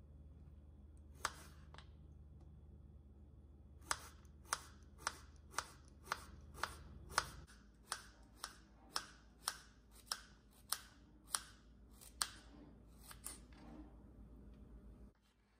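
Kitchen knife slicing a zucchini into rounds on a bamboo cutting board: one cut about a second in, then a steady run of about sixteen crisp cuts, about two a second, each ending in a tap of the blade on the wood.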